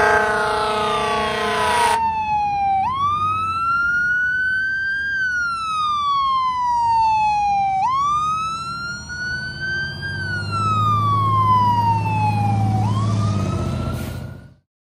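Fire engine responding code 3: an air horn blasts for the first two seconds over the siren. The siren then wails alone, rising and falling slowly in pitch about every five seconds. The sound cuts off suddenly near the end.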